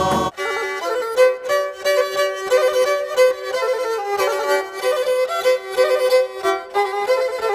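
Instrumental opening of a Pontic Greek Christmas carol: a bowed string instrument plays a lively melody of quick short notes, with no singing. It starts abruptly about a third of a second in, as the previous choral carol cuts off.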